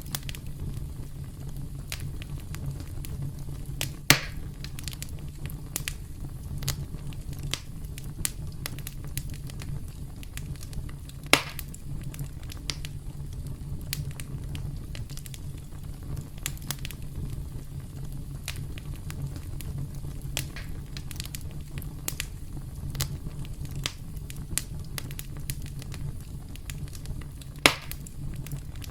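Campfire crackling steadily over a low rumble of the flames, with many small snaps and three louder pops of burning wood.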